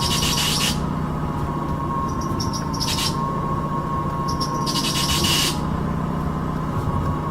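Car engine running with the power steering pump whining steadily, and a high squeal breaking out over it three times as the steering is worked. This is the stiff, rough-spotted power steering being treated with an antifriction conditioner.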